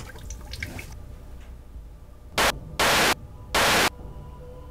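Three short bursts of loud static hiss, each about a third of a second or less, starting a little over two seconds in, over a low steady hum.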